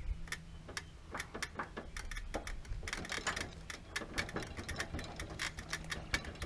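Rapid, irregular light metal clicks and taps of a brush cutter's wheel hub being worked onto its greased axle shaft and key, getting busier about halfway through.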